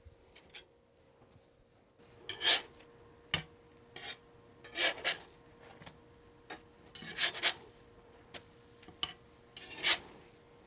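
Short scraping strokes in a cast iron frying pan as cottage cheese pancakes are put in and moved about in hot oil and butter, about eight strokes from two seconds in, with brief light sizzling. A faint steady hum runs underneath.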